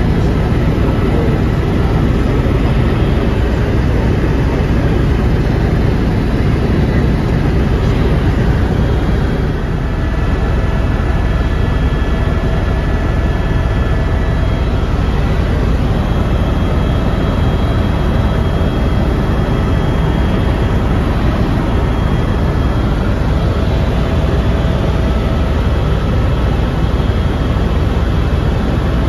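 Helicopter in flight heard from inside its cabin: a loud, steady rumble of rotor and engine, with faint steady high tones over it.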